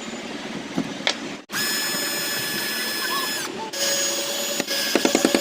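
A small electric motor running at speed with a steady high whine. It is cut off abruptly twice, and its pitch drops briefly as it slows about three and a half seconds in. A quick run of clicks comes near the end.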